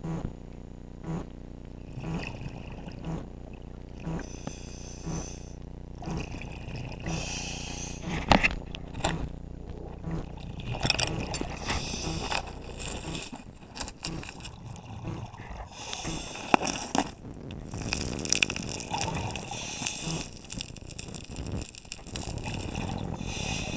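Underwater sound of a scuba dive: a diver breathing through a regulator, with gurgling exhaled bubbles. From about the middle on, close knocks and scrapes of a gloved hand and gear against the camera housing take over.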